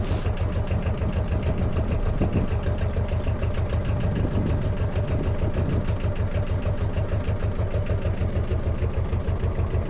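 A narrowboat's engine running steadily under way, with an even, rapid beat.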